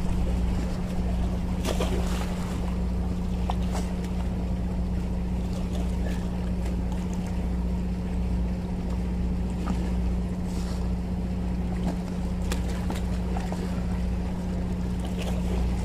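Steady low engine hum with a low rumble, over wind on the microphone and moving water, with a few light splashes as a goliath grouper is handled at the water's edge.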